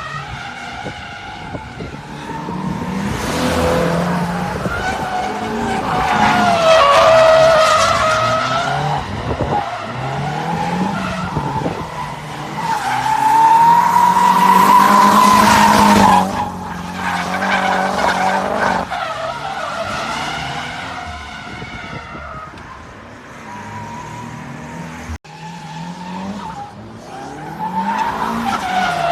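Nissan Silvia S15's SR20 four-cylinder engine revving up and dropping back again and again while drifting, with the tyres squealing and skidding.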